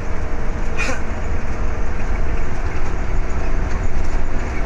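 Intercity bus driving at speed, heard inside the cabin: a steady low rumble of engine and road noise with a faint hum.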